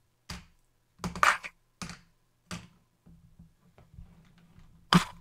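Small M6 alloy-steel button head screws clicking and clinking as they are dropped back into the compartments of a plastic storage case, in a few separate bursts, followed by light handling ticks. Near the end comes a single sharp plastic click as the case is pressed shut.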